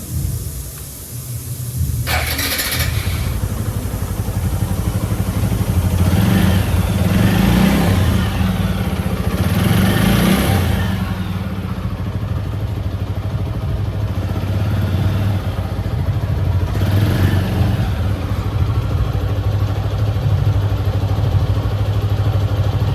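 TVS Apache RTR 160 4V's single-cylinder engine running, with several blips of the throttle that swell the sound and fall back to idle. A sudden louder burst comes about two seconds in.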